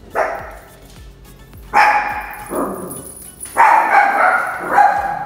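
A dog barking about four times in loud, drawn-out barks, over background music.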